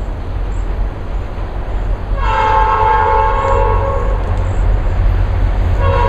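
Nathan P5 five-chime air horn on an approaching SD40-2 diesel locomotive sounding a long blast that starts about two seconds in, then a second blast starting near the end. A steady low rumble runs underneath.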